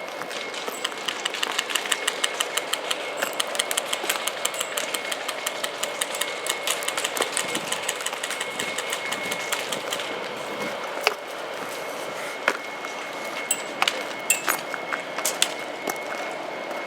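Airsoft guns firing: rapid strings of sharp shots and BB hits for about the first ten seconds, then scattered single shots. A faint steady high whine runs underneath.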